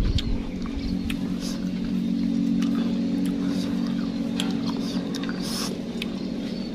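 A low, steady motor hum that swells in the middle and fades toward the end, with faint scattered clicks of handling and eating over it.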